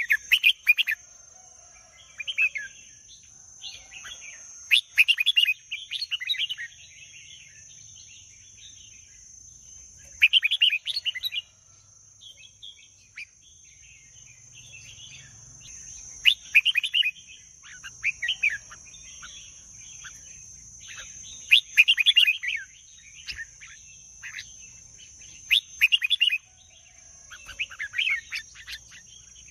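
Red-whiskered bulbul singing: short phrases of song repeated every few seconds, over a steady high-pitched hum.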